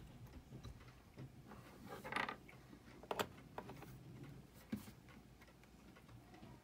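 Small metal clicks and clatter as a Seiko 7549 quartz watch movement is turned over and handled in its metal movement holder: a brief clatter about two seconds in, a sharp click about a second later, then a few lighter clicks and a knock near the five-second mark.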